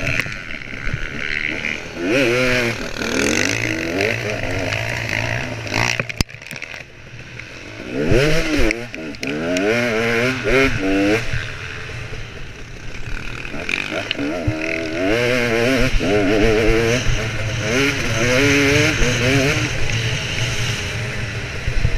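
Dirt-bike engine heard from the on-board camera, revving up and dropping back as it is ridden, with wind rushing on the microphone. The revs fall away about six seconds in, then climb again in repeated pulls.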